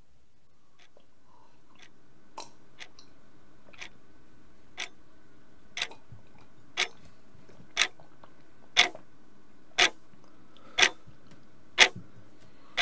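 Clock ticking about once a second, starting a couple of seconds in, each tick louder than the last, over a faint steady hum.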